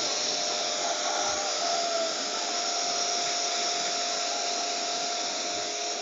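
Electric pressure washer running steadily, a constant whine over the hiss of its water jet spraying onto an air conditioner's outdoor unit to wash the dirt out of it.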